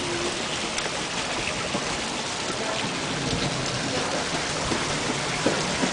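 Steady rush of a stream's running water, an even hiss with no pauses.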